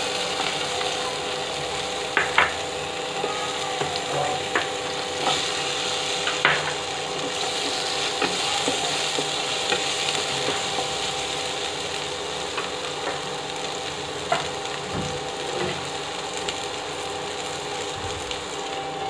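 Water chestnut and potato pieces sizzling in hot oil in a non-stick kadhai, with a spatula scraping and clicking against the pan as they are stirred.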